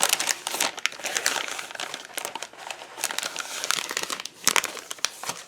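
Paper and plastic packaging crinkling and rustling as items are handled and pulled from a box, in irregular crackles.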